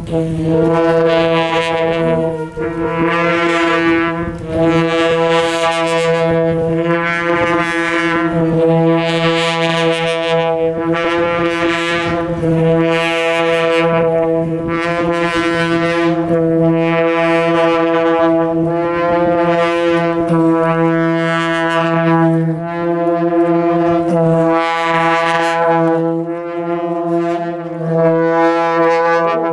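Kumaoni folk wind band: a reed pipe, likely a masakbeen (bagpipe), plays a repeating phrase over an unbroken drone, with drumming underneath.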